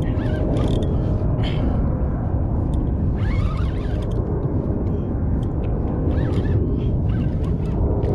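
Wind buffeting the microphone: a steady low rumble, with faint brief rising squeaks about three and six seconds in.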